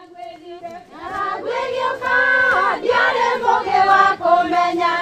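A choir of voices singing together, faint at first and growing louder about a second in.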